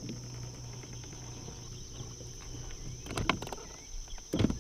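Insects keep up a steady, high buzzing drone over a low, steady hum. Two sharp knocks come near the end.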